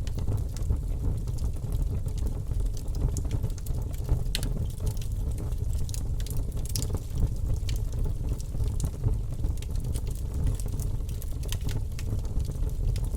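Campfire burning, the wood crackling and popping in scattered sharp snaps over a steady low rumble.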